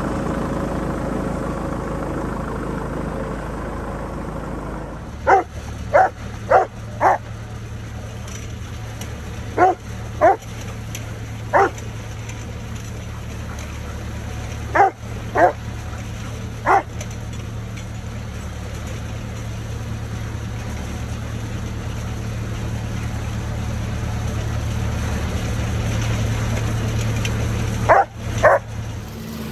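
Tractor engine idling for the first five seconds. After that a dog barks in short runs of one to four barks, about a dozen in all, over a steady low hum.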